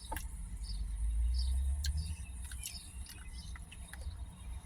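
Crickets or other insects chirping steadily in a high even drone, with a low rumble underneath and a few faint clicks.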